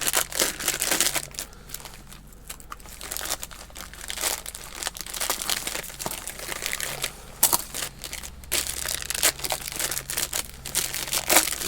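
Plastic packaging crinkling and rustling in the hands, on and off, as parts are unwrapped.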